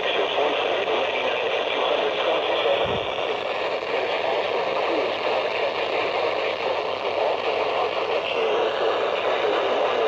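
Midland WR120 weather radio tuned to 162.550 MHz, playing a NOAA Weather Radio broadcast through its small speaker: a voice heavy with static and hiss, steady throughout.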